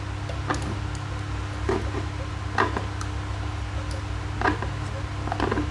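Light plastic clicks and taps as a plastic disc is twisted round and round on a rubber band stretched across a plastic jar lid, winding it up, over a steady low hum.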